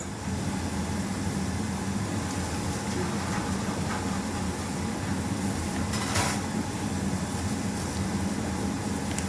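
A steady machine hum over constant hiss, with a short scrape or rustle about six seconds in.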